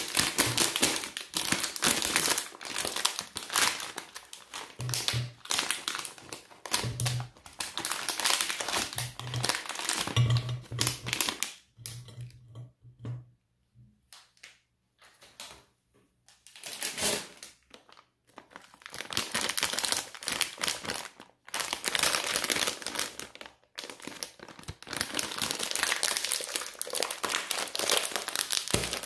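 Plastic sweet bag crinkling as it is handled and shaken, with small clicks of sweets dropping onto a ceramic platter. It goes mostly quiet for several seconds about twelve seconds in, apart from a few clicks. A second sweet wrapper is then crinkled continuously as it is worked open.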